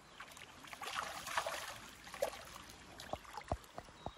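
River water splashing and sloshing as a keepnet full of barbel is handled waist-deep in the water, with several short knocks near the end.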